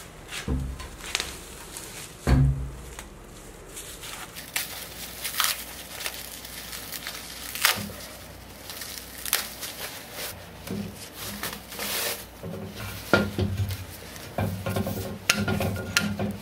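Paper wrapping being torn and peeled off a snakewood log, with irregular crackling tears and crinkles. Heavy thumps about half a second and two seconds in, and further knocks later, as the log is handled against the steel lathe bed.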